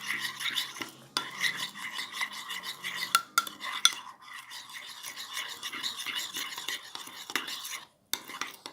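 Spoon stirring a sticky slime mixture of white glue, shaving foam and baking soda: a continuous run of quick wet scrapes and clicks, with a short break near the end.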